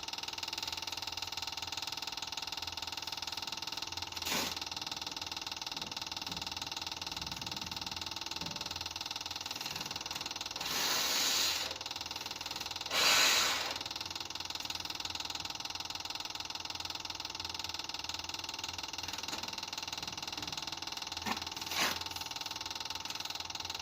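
Small electric fuel pump running steadily with the key on, a continuous hum, which the owner suspects is not pulling fuel through the new line. Two short breathy hisses come midway, with a few faint clicks.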